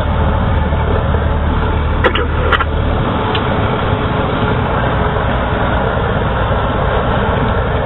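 Cessna 172's piston engine and propeller running steadily, with wind and airflow noise, heard inside the cabin as the plane rolls along the runway. The low engine hum changes about three seconds in, and two short clicks come a little after two seconds.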